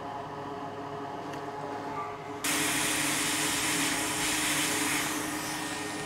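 A steady machine hum, then about two and a half seconds in a loud rush of air starts suddenly and runs for about three seconds, with a steady tone under it: air flow from an electronics rework tool while a laptop DC jack is being desoldered.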